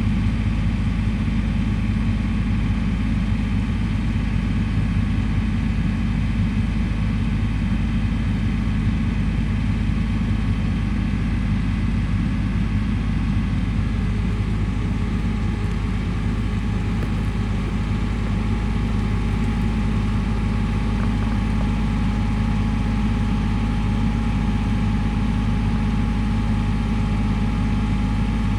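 A vehicle engine idling steadily: an even, low hum that holds the same pitch and level throughout.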